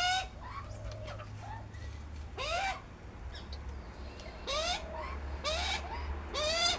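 A bird calling: several short rising calls with a rich, ringing tone, spaced a second or two apart, over a steady low hum.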